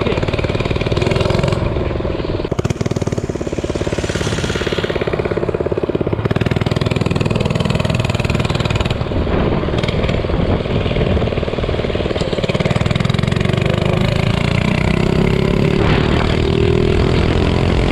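Minibike's small engine running under way, its speed rising and falling as it is ridden, then revving up steadily near the end.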